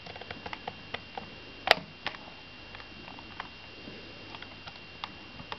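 Plastic toy transformation belt (Kamen Rider V-Buckle) being handled: scattered light clicks and taps, with a sharper snap about 1.7 s in and another just after 2 s.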